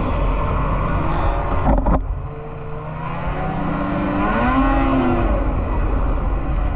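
Snowmobile engines running at racing speed. About two seconds in there is a brief knock and the sound drops a little, then an engine's pitch climbs and falls again as it revs.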